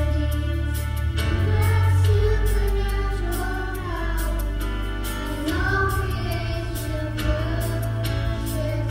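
A small children's choir singing a song together over a musical accompaniment with a bass line and a beat; the voices come in about a second in.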